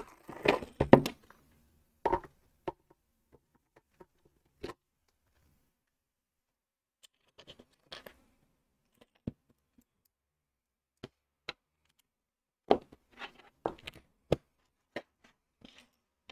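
Plastic LEGO pieces clicking and tapping as tiles are picked out and pressed onto the build: scattered sharp clicks with a few small clusters and short quiet gaps between them.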